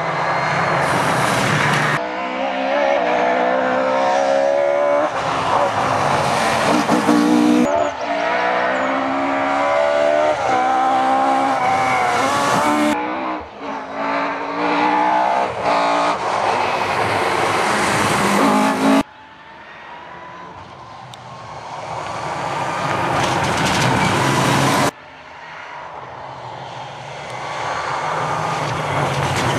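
Rally cars driven flat out on a stage: engines revving hard and climbing through the gears with repeated upshifts, in a series of short clips. Near the end a car approaches, its engine growing steadily louder.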